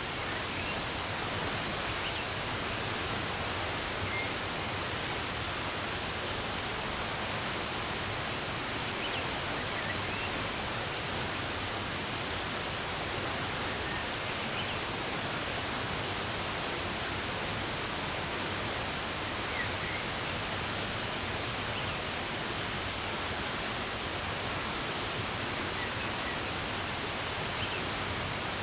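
Steady rush of running water, with a few faint, scattered bird chirps above it.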